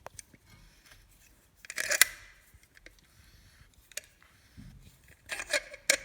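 Metal scraping and clicking as an old brake pad is pressed against a car's front brake caliper to push its piston back. Two louder scrapes, about two seconds in and near the end, with scattered clicks between them.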